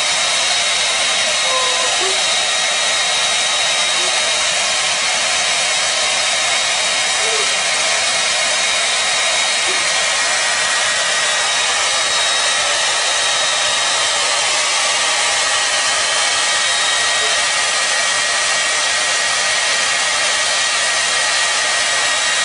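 Hair dryer running steadily: an even rush of blown air with a thin, steady whine from its motor.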